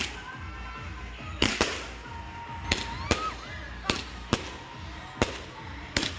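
Fireworks going off: sharp bangs every half second to a second, about ten in all, over a steady low rumble, with thin whistling tones between them.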